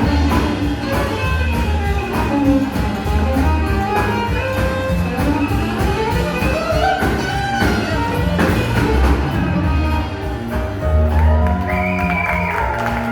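Live jazz band playing an instrumental passage: a gliding melody line over a steady bass and beat.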